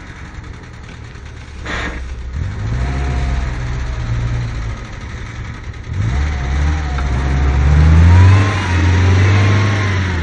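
Car engine of an SUV stuck in mud revving hard under load as it is pulled out on a tow strap. The revs climb a couple of seconds in, dip briefly, then rise again to their loudest about two thirds of the way through.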